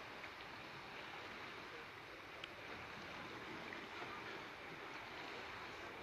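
A steady, even hiss of outdoor background noise with a few faint ticks.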